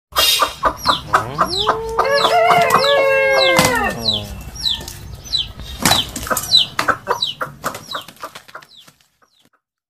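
A rooster flapping its wings in a quick run of claps, then crowing once in a long crow that drops away at the end, with short high chirps repeating throughout and fading out near the end.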